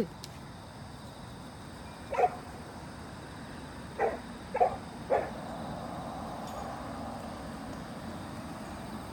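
A dog barking: one bark about two seconds in, then three quick barks a little later.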